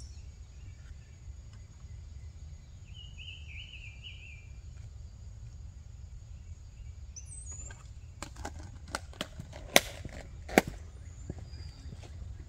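Outdoor campsite ambience with a steady low rumble and a bird chirping briefly about three seconds in. In the last few seconds comes a run of sharp clicks and knocks, two of them much louder, about a second apart.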